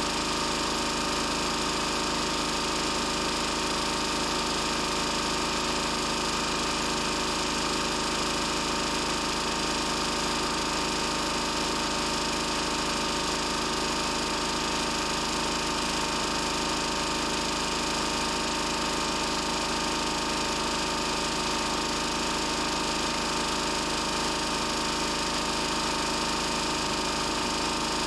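Lister Petter AD1 single-cylinder air-cooled diesel generator running steadily at its governed 3000 rpm, driving its Markon alternator, with an even, unchanging drone.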